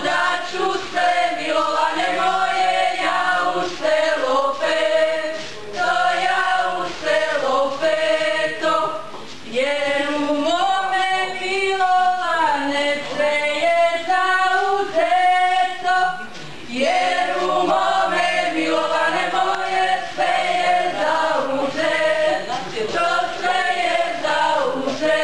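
A group of folk dancers singing a folk song together without instruments, women's voices to the fore with some men's. The song goes in phrases of a few seconds, with short breaks between them.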